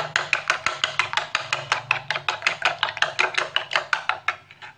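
Metal spoon beating raw eggs in a ceramic bowl: fast, even clinks against the bowl, about eight a second, stopping near the end.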